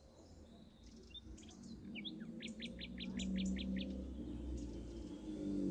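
A songbird's quick trill of about eight short, high chirps in a row, preceded by a few separate call notes, with a low steady hum underneath.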